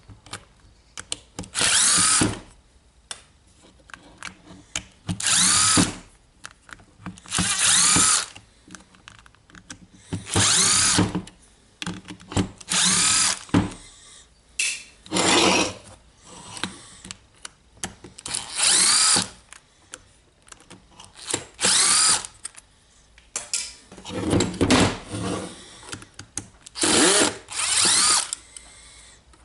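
A cordless impact driver run in about eleven short bursts, each under a second and starting with a rising whine, every two to three seconds, backing out the screws of a DeWalt 18V cordless drill's housing.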